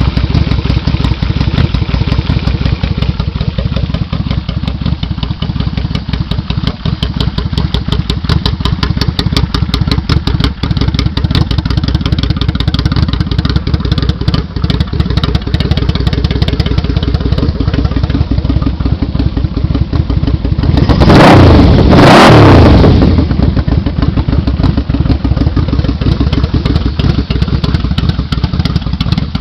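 Yamaha V-Max 1200's V4 engine idling through a four-into-four exhaust with a steady, even beat, revved twice in quick succession about three quarters of the way through.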